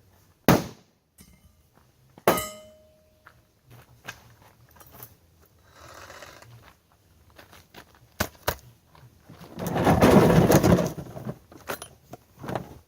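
Refrigerator door being smashed: two hard blows, the second leaving a short metallic ring, then scattered knocks and, about ten seconds in, a noisy crunching rattle lasting a second or so.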